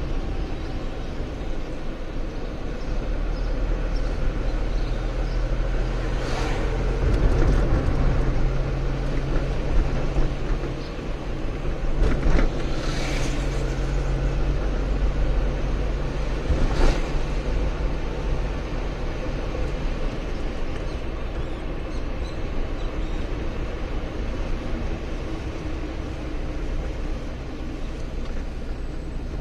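Car engine and road noise heard from inside the cabin while driving along a street: a steady low rumble with a few brief louder rushes, about six, thirteen and seventeen seconds in.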